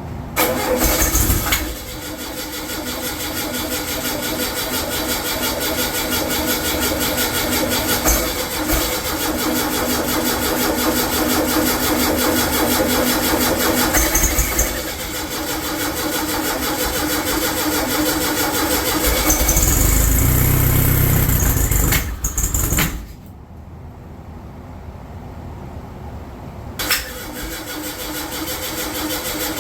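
Rebuilt Volkswagen 40 hp air-cooled flat-four engine on its first start attempt. It turns over and runs for about twenty seconds, stops suddenly, then starts up again a few seconds before the end.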